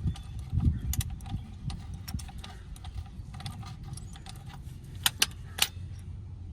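Small metallic clicks and clinks of a socket wrench working the oil drain plug loose on a car's oil pan, with three sharp clinks about five seconds in.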